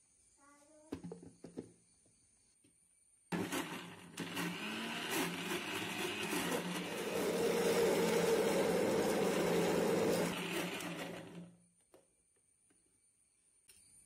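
Electric kitchen mixer-grinder running for about eight seconds, grinding cooked bananas into a paste. It starts abruptly and fades out as the motor stops. A few clicks come before it, as the jar is fitted onto the base.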